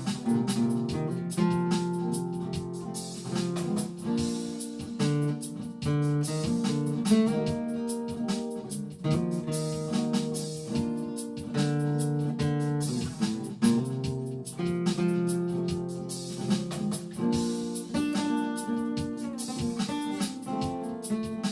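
Guitar-led instrumental break in a slow country-soul ballad: plucked guitar notes over held chords, with no vocals.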